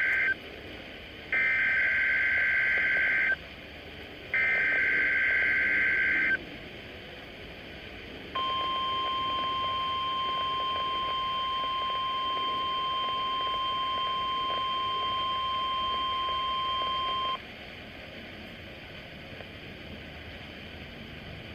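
NOAA Weather Radio Emergency Alert System test. The tail of one SAME digital header burst is followed by two more bursts of buzzing, chirping data tones, each about two seconds long. After a short pause comes the steady 1050 Hz warning alarm tone, held for about nine seconds before it cuts off to faint radio hiss.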